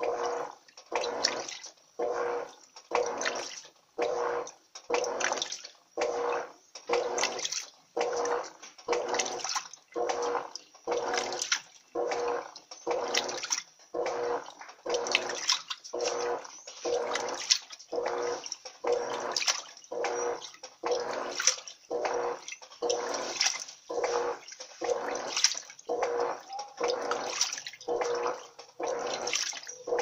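Electrolux Turbo Economia 12 kg (LTE 12) top-load washing machine in its agitation stage with a load of microfibre blankets: the agitator churns water back and forth in strokes about once a second, each stroke swishing with a steady motor hum under it.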